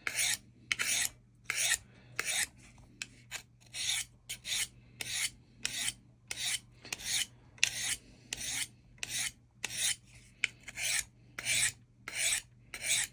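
Knife blade of S90V steel drawn in quick, light strokes along a 600-grit diamond sharpening rod, used like a honing steel. Each stroke is a short dry rasp, about two a second. The hard S90V steel, dulled on purpose, is slow to take an edge on the rod.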